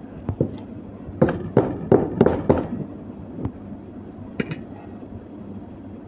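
A quick run of short, sharp taps over quiet room noise, most of them bunched together between about one and two and a half seconds in, with a few single ones before and after.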